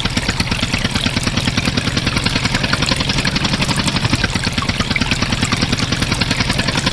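Engine idling steadily with a fast, even chugging beat, about ten pulses a second.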